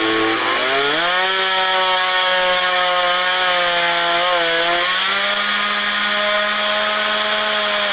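Electric outrunner motor spinning a jet-unit drive shaft through a plum coupler, giving a steady whine that rises in pitch about a second in and steps up again near the five-second mark. The motor is centred on its mount and the drive runs smoothly, with a tone the owner calls lovely.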